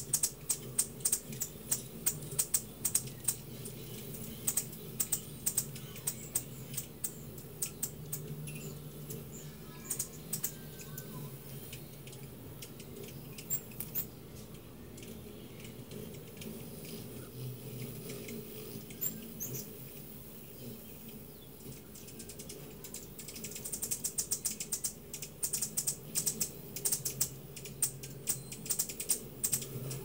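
Many hummingbirds chipping and twittering around a cluster of feeders: rapid, sharp high chips that come thick during the first few seconds and again near the end, over a steady low hum.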